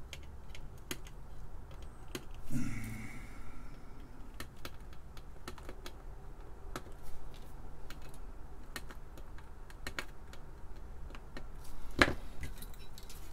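Flush cutters snipping component leads on the solder side of a circuit board: a string of sharp, irregular clicks, roughly one or two a second. There is a brief louder noise about two and a half seconds in and a single loud click near the end.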